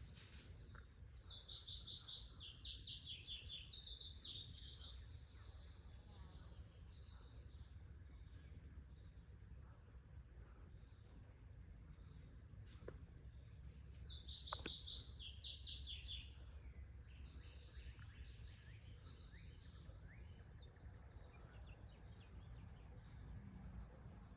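A songbird singing phrases of quick high chirped notes, each lasting a few seconds, heard twice, over a steady high insect drone.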